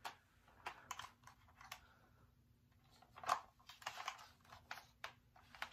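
Scattered light clicks and knocks of small objects being handled, with a busier patch of them a little after the middle, ending in one sharp, much louder snap.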